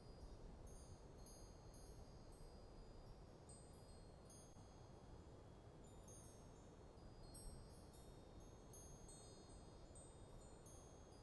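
Faint wind chimes ringing irregularly as they are blown about, many overlapping high tinkling notes, over a soft steady breeze.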